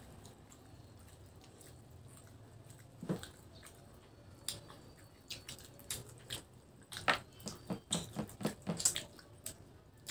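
Close-up wet chewing and lip-smacking from people eating boiled pork hock with their fingers. A single smack comes about three seconds in, then a quick run of short, sharp wet clicks and smacks through the second half.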